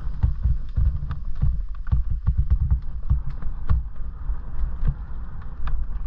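Mountain e-bike riding over a bumpy dirt track: a low rumble of ground vibration and wind on the microphone, with frequent sharp clicks and rattles as the bike jolts over the bumps.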